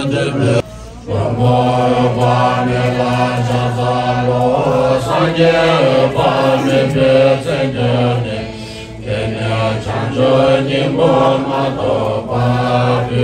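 A group of men chanting Tibetan Buddhist prayers together from prayer texts on a low, steady pitch, led by a monk on a microphone. The chant breaks off briefly about a second in and dips again near nine seconds.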